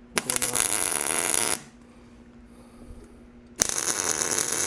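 Two tack welds with a Miller arc welder on thick steel plate, each a second or more of loud, steady arc crackle. A low steady hum is heard in the gap between them.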